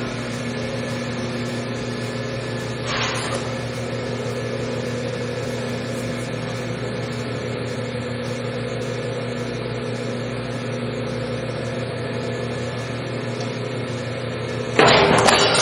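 Electric motor of a powered sheet-metal shear humming steadily, just spun up. A brief noisy rasp comes about three seconds in, and a louder burst near the end as the shear cuts 18 gauge steel sheet.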